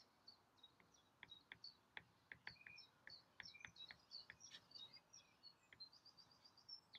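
Near silence, with faint stylus taps and scratches of handwriting on a tablet screen, a few per second, and faint short high chirps.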